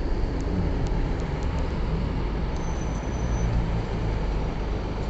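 Two city buses pulling away along the street, their engines running with a steady low rumble over road and traffic noise.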